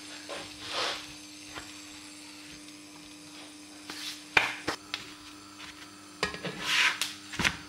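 A few light clicks and knocks as a rolled-out roti is laid into a dry, hot nonstick frying pan and a spatula touches the pan, with a short scraping hiss near the end.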